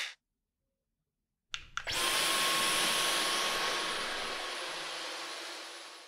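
Dyson V12 Detect Slim cordless stick vacuum switched on: a couple of clicks, then the motor starts suddenly and runs with a steady rushing sound and a thin high whine, fading away near the end.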